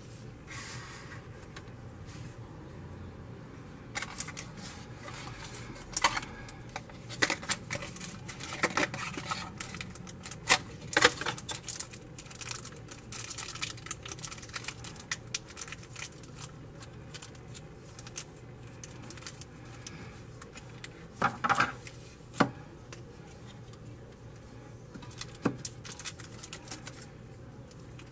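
Small plastic items being handled: a battery in a thin plastic bag crinkling and rustling, with irregular sharp clicks and taps of hard plastic. The crinkling and clicks are busiest in the middle, with a few louder clicks later on.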